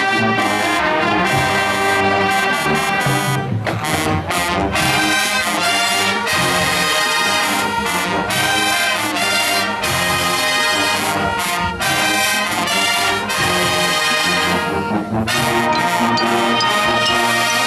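Marching band playing loudly, led by its brass: trumpets and sousaphones sounding together in full ensemble.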